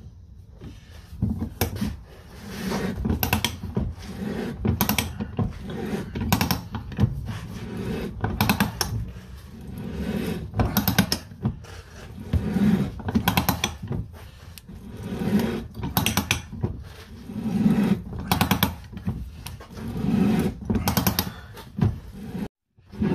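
Manual ratchet pipe threader with a 2-inch die cutting threads into oiled rigid steel conduit, worked in repeated handle strokes about every two seconds. Each stroke is a swell of rough metal-on-metal cutting noise, with sharp clicks of the ratchet between strokes. It cuts off abruptly near the end.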